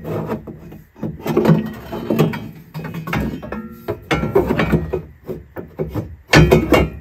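Irregular knocking and clattering as metal engine parts and tools are handled, with a short ringing tone about halfway through.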